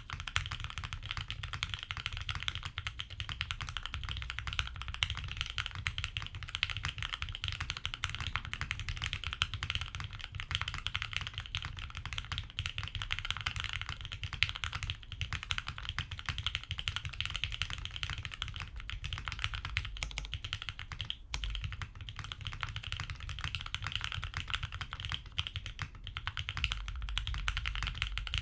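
Continuous, fast typing on a TGR Jane V2 custom mechanical keyboard with lubed linear switches (Tealios V2 housings with Gateron Black stems) mounted in a polycarbonate plate, its case dampened with neoprene foam. The keystrokes run together in a dense, steady stream.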